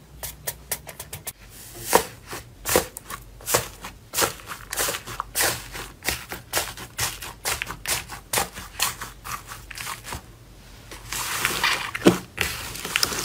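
Fingers pressing and breaking into a tub of thick, foamy slime, giving a rapid run of sharp crackling pops. From about eleven seconds in, both hands squeeze and knead the slime, and the crackling turns into a dense, continuous crinkle.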